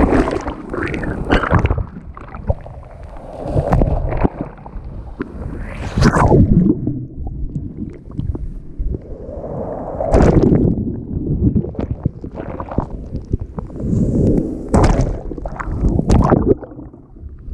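Waves washing in and splashing, in irregular surges every few seconds, with a low rumble underneath.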